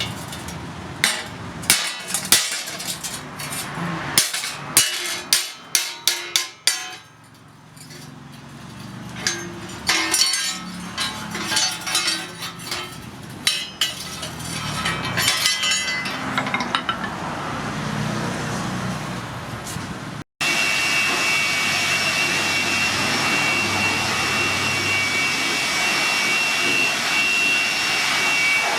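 Hammer blows on steel: a fast run of ringing strikes, then irregular knocks and clinks. After a cut, a power tool runs steadily with a high whine and hiss.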